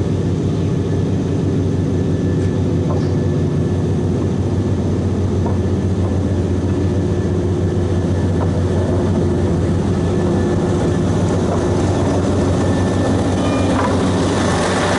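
Narrow-gauge Lyd2 diesel locomotive's engine running with a steady low drone as it approaches slowly along the track, getting a little louder near the end as it reaches the microphone.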